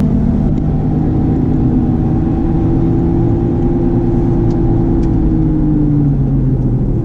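Inside the cabin of a moving Honda CR-V (RD1): steady road rumble with a droning hum from a worn wheel hub bearing, the hum dropping slightly in pitch about six seconds in.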